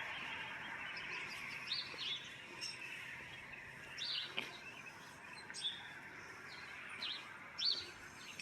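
Small songbirds chirping: short, high, scattered calls, several a second at times, over a faint steady outdoor hiss.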